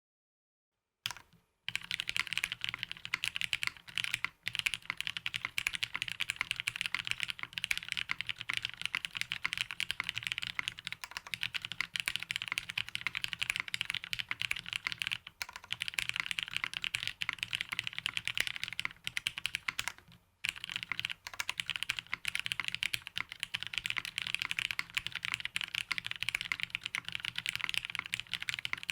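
Fast, continuous typing on a Matrix 6XV 2.0 Falcon mechanical keyboard fitted with Cherry Hyperglide Black linear switches, an FR4 half plate and GMK keycaps. The typing starts about a second in and pauses briefly about four seconds in and again around twenty seconds in.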